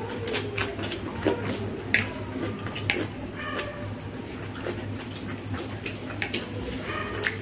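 Wet chewing and lip-smacking, with the sticky squelch of hands mixing and scooping rice and egg omelette curry: many short irregular clicks and smacks over a steady low hum.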